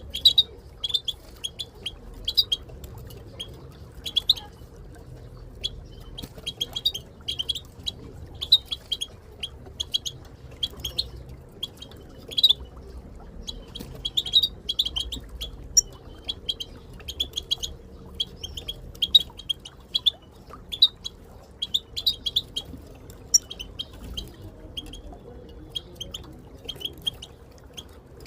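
European goldfinches giving their chattering contact calls: short, sharp chirps repeated in quick clusters, with brief pauses between bursts.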